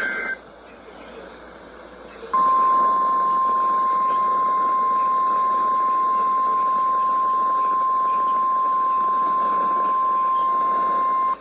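NOAA Weather Radio warning alarm tone: one steady 1050 Hz tone, starting about two seconds in and held for about nine seconds before it cuts off, over light radio hiss. It marks the start of a severe thunderstorm warning. The very start holds the tail of a SAME digital header burst.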